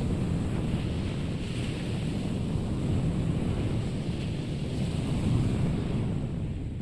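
Wind buffeting the microphone with a low rumble, over the steady wash of ocean surf breaking on the beach.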